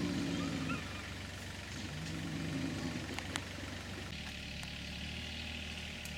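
Brown bear giving two drawn-out low growls in a face-off with another bear, the first ending just under a second in, the second from about two to three seconds in. A single sharp click a little after three seconds, then a steady low hum.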